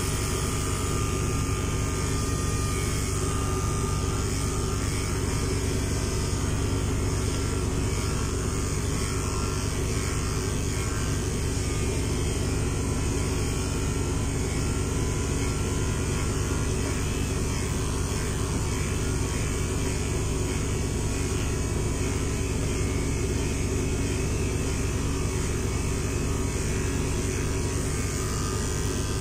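Corded electric pet clipper with a 5FC blade running steadily, shaving a Persian cat's long white coat.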